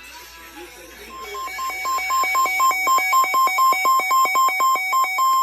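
Weather radio alert alarm: rapid, pulsing electronic beeps pitched around 1 kHz, fading in about a second in and then sounding steadily. It signals an incoming emergency warning broadcast.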